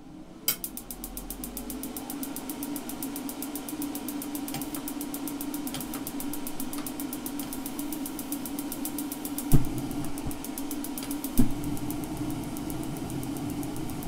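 Ridgid 18-volt hybrid propane forced-air heater starting up: its battery-driven brushless fan starts to hum, and the igniter clicks rapidly and evenly, the heater's click-click-click when the on button is pressed. Two loud thumps come near the end.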